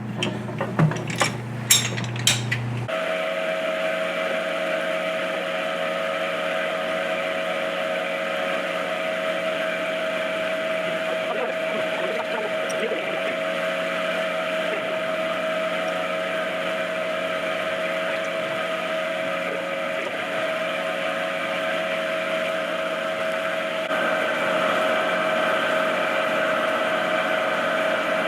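A few sharp metallic clinks, then a machine starts running with a steady whine and hiss, its tone shifting slightly near the end.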